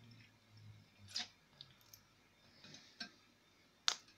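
A handful of light clicks and taps, the loudest one near the end, from handling around the model steam engine's boiler while it is being filled with water.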